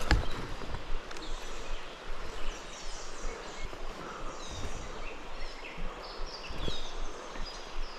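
Creek water running in a steady rush, with birds chirping in short, falling notes through the middle. A single sharp click right at the start.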